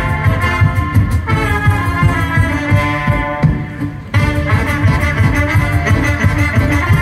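Brass band with violins playing live: trumpet, trombone and saxophone over a pulsing tuba bass line. The band thins out about three seconds in and comes back in full just after four seconds.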